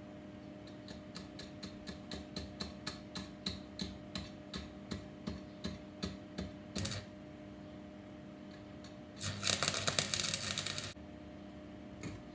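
Electric welding arc on a small metal part: a run of short, evenly spaced ticks, about three a second, then a louder crackling burst lasting just under two seconds near the end, with a faint steady hum underneath.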